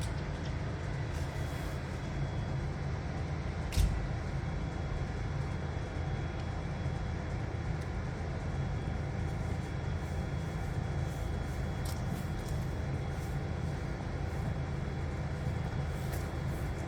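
Passenger train running with a steady low rumble, with one sharp knock about four seconds in.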